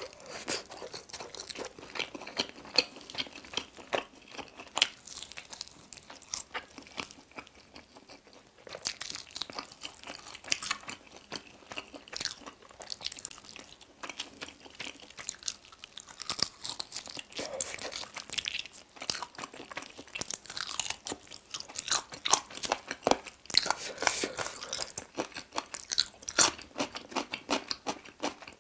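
A person biting and chewing sauced Goobne Mala Volcano chicken wings: a dense, irregular run of crunches and mouth clicks that thins out briefly twice.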